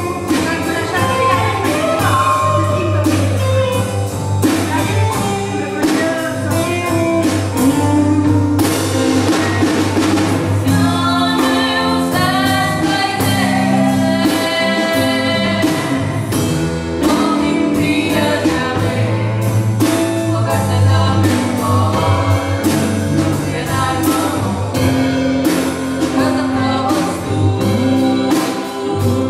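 A woman singing a musical-theatre song with band accompaniment and a steady drum beat.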